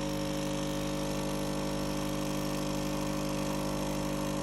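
Capsule espresso machine's pump buzzing steadily as it brews a cup of coffee.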